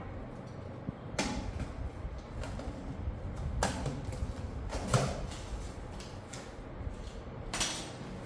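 Cardboard box and its packaging being opened and handled: several short scrapes and knocks with rustling between them.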